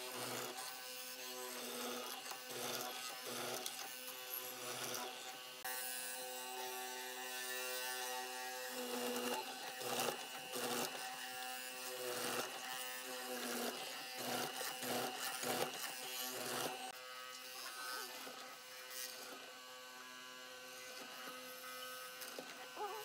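Benchtop hollow-chisel mortising machine running with a steady electric whine while its chisel is plunged again and again into a wooden board to cut square mortises. The cutting strokes come thickest in the middle of the stretch.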